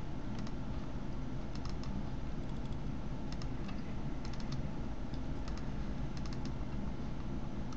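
Clicks of a computer mouse and keyboard, in quick clusters of two to four about once a second, over a steady low hum.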